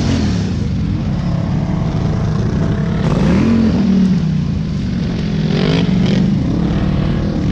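ATV engine revving up and easing off as the quad is ridden over dirt mounds on a trail, its pitch rising and falling several times.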